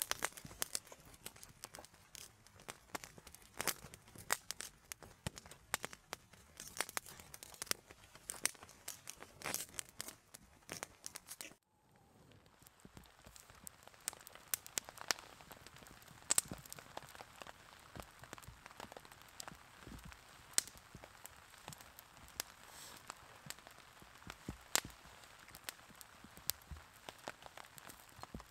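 Wood campfire crackling with many sharp pops. About a third of the way in, the sound cuts off suddenly and resumes as sparser crackles over a faint steady hiss.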